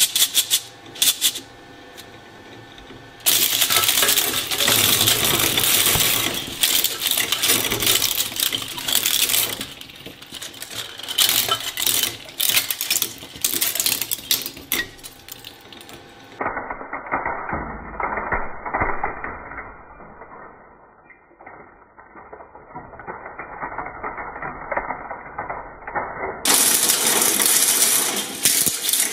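Twin-shaft shredder's hooked steel cutters crushing a plastic toy abacus: dense, rapid, irregular cracking and snapping of plastic with rattling pieces. For a stretch past the middle the sound turns duller before the sharp cracking returns near the end.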